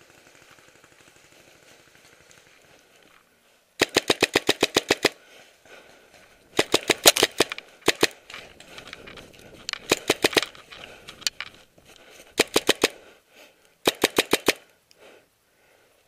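Paintball marker firing in five quick strings of shots, about eight shots a second, starting about four seconds in.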